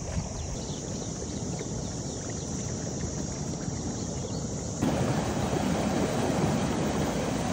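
Wind on the microphone over water in a tidal channel; about five seconds in, a louder, steady rush of water pouring through a small sluice and foaming down a channel.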